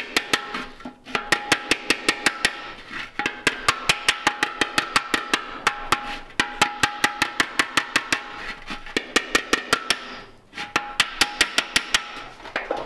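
Steel body hammer striking an old steel fender in rapid glancing blows, about five or six a second, in runs of a few seconds with short pauses, each blow leaving a metallic ring. The hammer knocks down a high spot while a dolly held underneath pushes up the low spot beside it, working the dent out.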